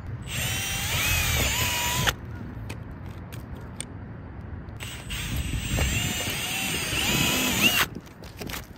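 Cordless drill running in two bursts of about two and three seconds, drilling pilot holes through the asphalt shingles to find the rafter. The motor's whine rises and shifts in pitch within each burst.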